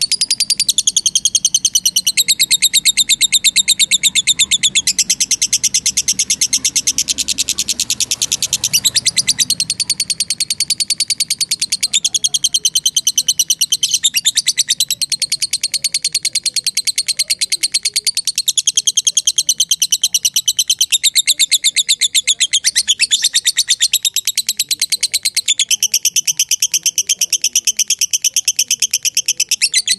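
Lovebird giving a long, rapid chattering trill ('ngekek panjang'): very fast repeated high-pitched notes with no pause, the pitch shifting every few seconds.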